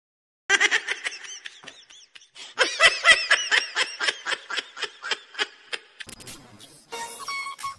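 High-pitched rapid giggling laughter, a short burst about half a second in and a longer, louder run from about two and a half seconds, tailing off around six seconds.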